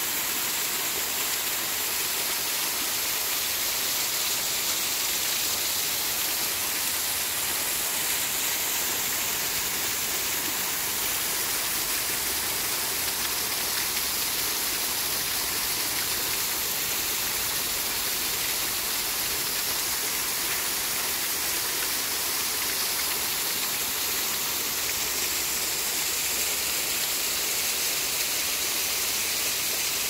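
A small waterfall falling in thin streams over rock ledges and splashing into a shallow rock pool: a steady, even rush of water, brightest in the high range.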